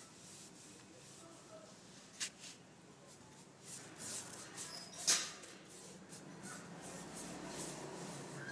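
Paintbrush bristles and a rag rubbing over a wooden cabinet door as brown wood stain is applied, in short scratchy strokes. Two sharp clicks come about two and five seconds in, the second louder.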